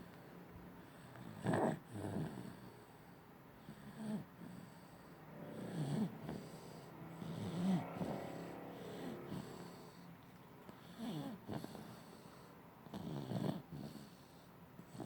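An 8-month-old baby's stridor: noisy breaths, some with a pitched edge, about six of them at irregular intervals of two to three seconds. The loudest come about a second and a half in and near the middle.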